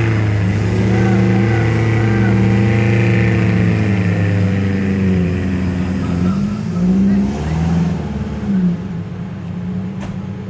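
Suzuki Jimny's 1000 cc-class engine working hard off-road, its pitch rising and falling repeatedly as the throttle is worked, then settling to a steadier, lower note about nine seconds in.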